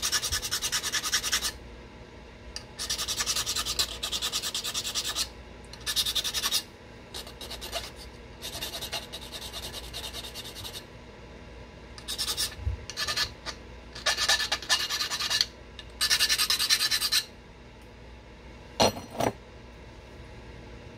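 A stone dart point being worked by hand in repeated bursts of rapid scraping, each a second or two long, with short pauses between. Near the end come two sharper single scrapes.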